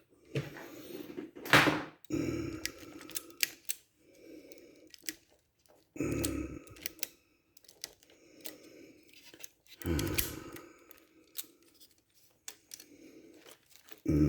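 Clicks and clunks from a Marantz 1810 cassette deck's tape transport mechanism as it is worked by hand, with several heavier knocks among many small clicks. The mechanism has a slipping idler tire that leaves its wheel with no torque.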